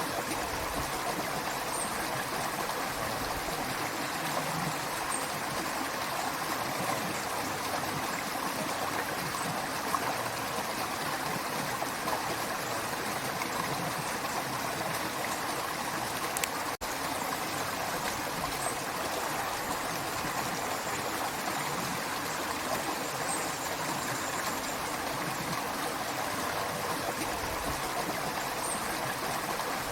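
Creek water running steadily, a continuous rushing and babbling, with a split-second break a little past halfway.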